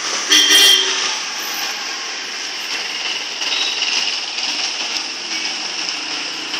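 A vehicle horn honks briefly about half a second in, over steady street traffic noise.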